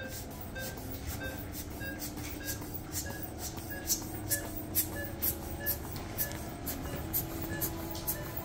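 Atmospheric air being pushed through tubing and a port into the peritoneal cavity in quick, evenly spaced hissing puffs, about two to three a second, to make space inside the abdomen. A short high beep repeats steadily behind it.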